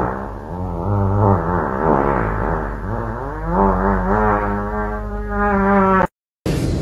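A pug's drawn-out howl, one long note wavering up and down in pitch, breaking off suddenly about six seconds in.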